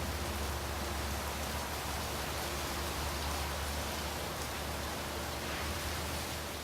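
Steady, even hiss with no rhythm or pitch, fading out at the very end.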